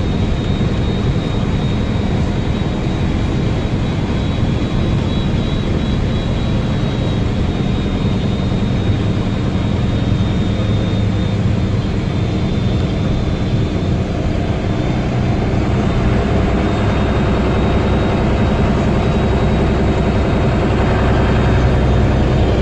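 Guy Arab III bus engine running steadily, with a thin high-pitched whistle held over the engine note. About two-thirds of the way through, the engine note deepens and gets heavier.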